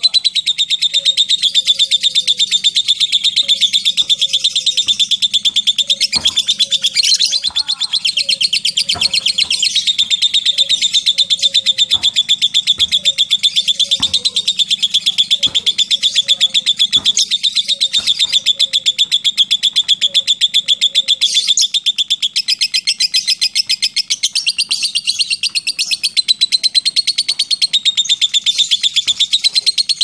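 Lovebird giving a long, unbroken ngekek: a very rapid, high-pitched chattering trill that runs on without a pause, with a few sharp clicks scattered through it.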